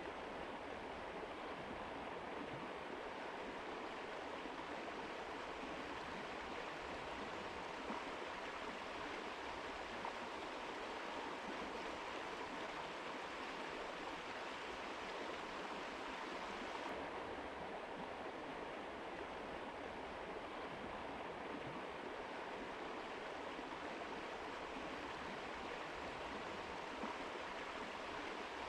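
Mountain river rushing over rocks: a steady, unbroken wash of water.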